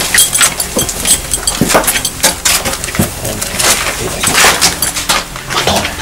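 Footsteps crunching and scraping on debris-strewn stairs and floor, a run of irregular crunches and knocks.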